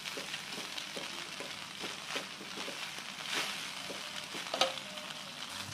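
Vermicelli noodles stir-frying in a wok: a steady sizzle with a metal spatula scraping and tapping against the pan as the noodles are tossed, and one sharper clink about four and a half seconds in.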